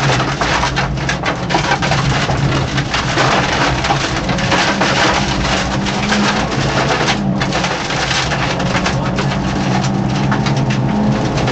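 Inside a Peugeot 205 1.9 rally car at speed: the four-cylinder engine runs hard at fairly steady revs. Over it comes a constant clatter of gravel and stones hitting the underbody.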